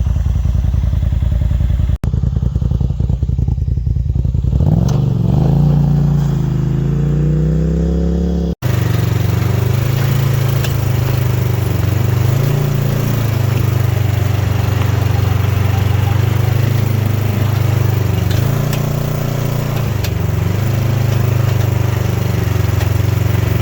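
Polaris RZR side-by-side engine running while driving on a trail, its pitch climbing as it gathers speed, then holding a steady drone with small rises and dips. The sound cuts out abruptly twice in the first third.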